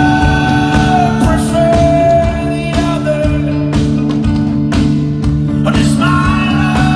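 Live folk-rock band playing an instrumental passage at full volume: drums hitting regularly under held electric guitar notes, bass and banjo.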